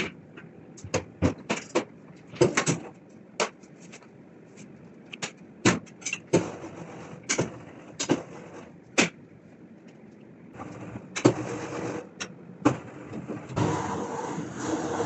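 Scattered knocks and clacks of tools and a mold being handled on a work surface. Near the end a machine motor starts running with a steady hum.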